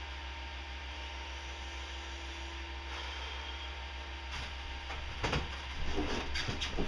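Steady low electrical hum, then from about four seconds in a few short knocks and rustles of hand tools being handled, getting louder toward the end.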